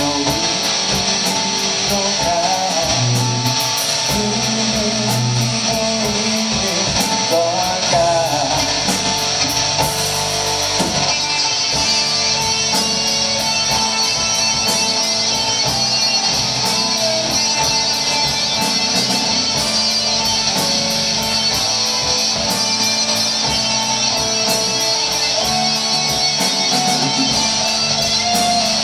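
Live rock band playing: electric guitars over bass, drums and keyboard. The music shifts to a brighter, fuller section about eleven seconds in.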